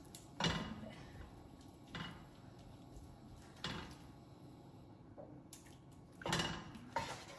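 A cooking utensil knocking and scraping in a kadhai while ghee and gram flour are stirred for roasting: five short clatters spread out a second or two apart, the loudest about six seconds in.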